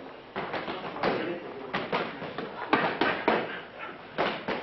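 Gloved punches landing during boxing sparring: a run of sharp smacks at irregular intervals, with short voice sounds among them.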